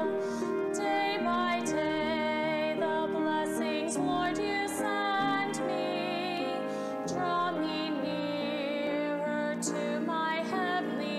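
A woman singing a solo song with long, wavering held notes, over a steady instrumental accompaniment.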